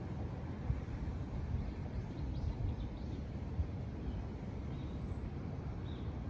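Steady low outdoor rumble, with a few faint high chirps now and then from about two seconds in.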